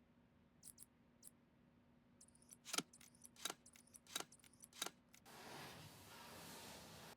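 Faint clicks and taps of small hard parts being handled, with four sharper clicks roughly a second apart, then about two seconds of rustling, over a faint steady hum.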